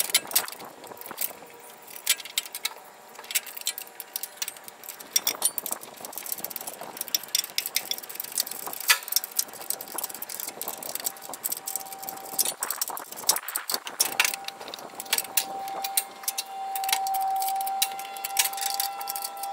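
Bolts and a 13 mm wrench clinking and clicking against metal, many irregular small knocks, as a chute door is bolted onto a mower deck. A steady high whine comes in about two-thirds of the way through and grows louder near the end.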